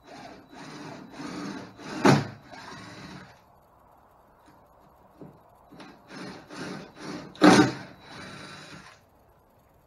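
Cordless drill with a 5/16-inch bit boring bolt holes through a Gheenoe skiff's transom, in two bursts of about three seconds each. Each burst has a sharp louder moment near its middle.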